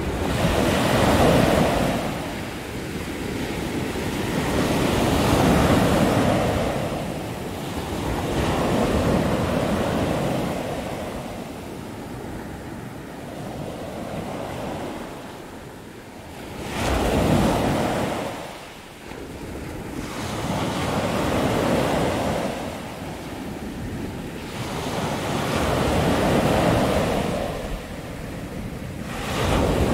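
Ocean surf breaking and washing onto a sandy beach, swelling and fading every few seconds, with wind buffeting the microphone.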